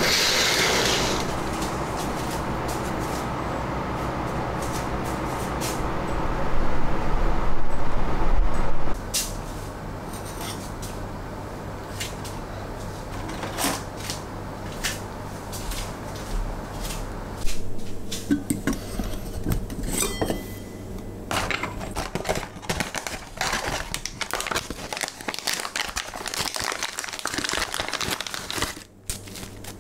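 A steady noise that swells near the end of its run and then stops sharply. After it come scattered light clicks, taps and clinks as tea things are handled: a tea box is taken from a shelf, and a glass teapot with a steel infuser is handled on a stone counter.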